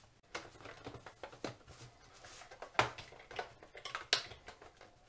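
Scattered light clicks and taps of a screwdriver and plastic pry tools against a plastic set-top box case while prying at the clips that hold its lid, with two sharper clicks about three and four seconds in.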